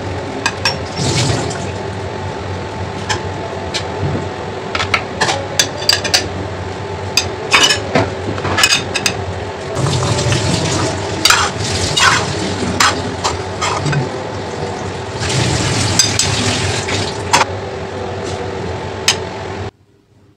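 Kitchen work: water running in bursts, with many sharp clinks of dishes and utensils over a steady hum; it all cuts off suddenly near the end.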